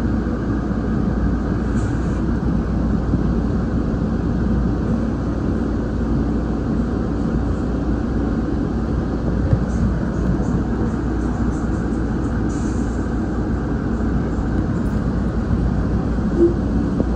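Siemens P2000 light rail train running at speed, heard from inside the operator's cab: a steady rumble of wheels on rail, with a few faint clicks.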